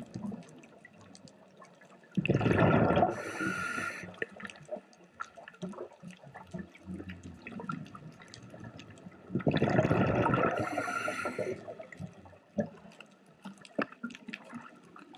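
Scuba regulator exhaust bubbles from the diver's breathing, two loud bubbling rushes about seven seconds apart, with faint scattered clicks in the quieter stretches between breaths.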